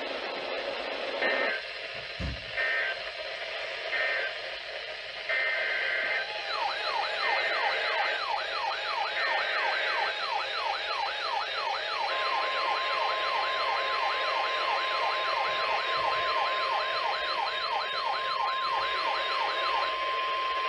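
NOAA Weather Radio alerting signals: a run of short buzzing digital data bursts in the first ten seconds, then a weather radio receiver's siren alert, a pitch sweeping up over and over a few times a second, from about six seconds in. The steady, single-pitch Weather Radio warning alarm tone joins about twelve seconds in and holds to the end.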